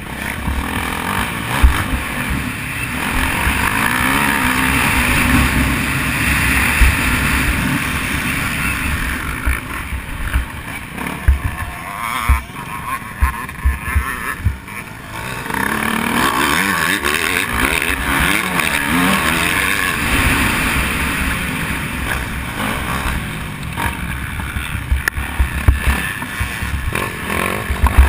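Motocross dirt bike engine heard from a camera on the bike, revving hard under load along the track, easing off for several seconds midway and then pulling hard again. Wind rumble and short knocks from the rough track come through the microphone.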